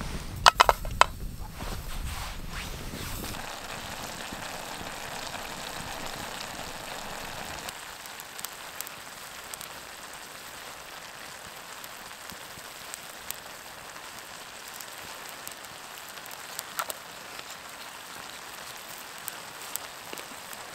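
Reindeer strips sizzling in a pan over a twig stove, a steady frying hiss with scattered crackles, softening after about eight seconds. A few sharp clicks sound about half a second to a second in.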